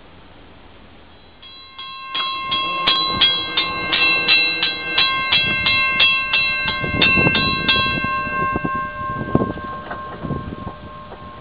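Railroad grade-crossing warning bell ringing rapidly, about three strokes a second, starting a couple of seconds in as the crossing gates come down, and stopping about eight seconds in. A few low thumps follow near the end.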